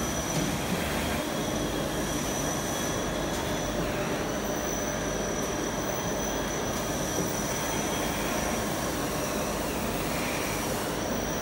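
Servo-driven pad printing machine running: a steady mechanical hum and hiss with a constant high-pitched whine throughout, without distinct strokes or clunks.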